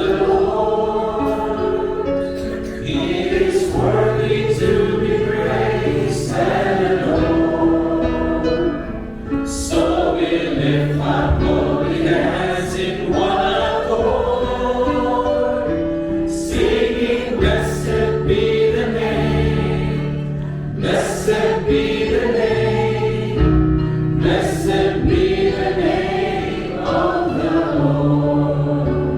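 Choir singing a slow Christian song with instrumental accompaniment and sustained bass notes.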